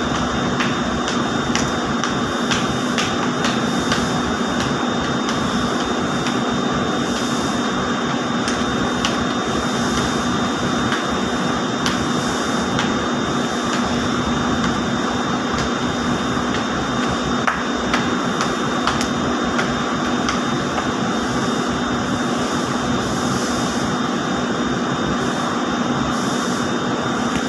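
Steady machinery noise of running ring spinning frames in a textile mill, an even whir with a constant low hum and a faint high whine, dotted with light clicks.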